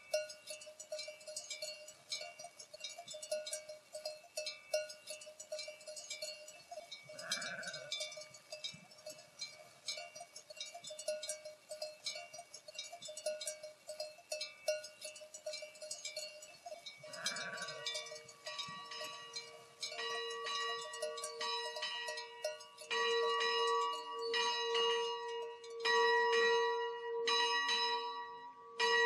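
Many small bells on a grazing flock of sheep clinking continuously, with a sheep bleating twice, about a quarter of the way in and again about halfway. About two-thirds of the way in, a church bell starts ringing in repeated strokes and grows louder, taking over from the flock bells.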